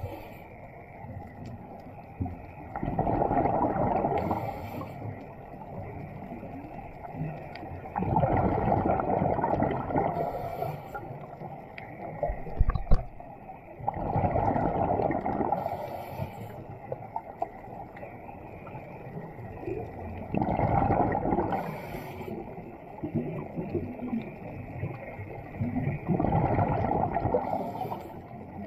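A scuba diver breathing through a regulator underwater, heard muffled in a camera housing: a gurgling rush of exhaled bubbles about every six seconds, five times, each followed by a short hiss. There is a single sharp click about halfway through.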